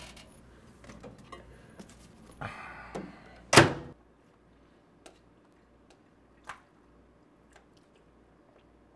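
Microwave oven door opened and food handled, then the door shut with a single loud thunk about three and a half seconds in. After that, a few faint clicks of a fork against a plastic food container.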